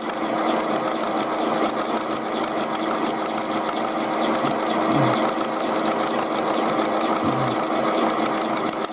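Homemade milling machine, driven by a washing-machine motor, running steadily with a hum while its rotating cutter is fed slowly into the rim of a thin steel tin can, giving a fast, even ticking.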